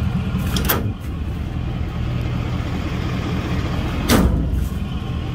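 Ford 6.7L Power Stroke turbo diesel idling steadily, with two short knocks from handling, about a second in and about four seconds in.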